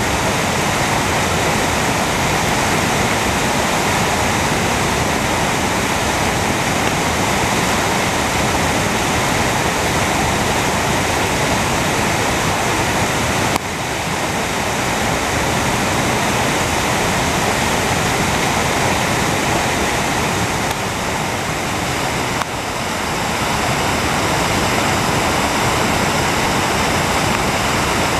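Muddy floodwater rushing and pouring over rocks and debris in a flood-swollen creek, a loud, steady torrent. The level drops slightly about halfway through and again a little past 20 seconds, then recovers.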